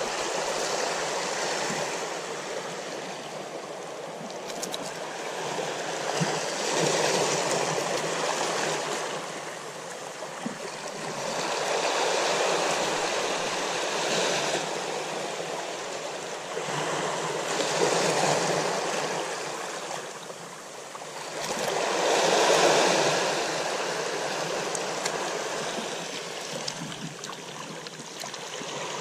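Small waves washing onto a rocky shore: a rushing of water that swells and fades every five seconds or so.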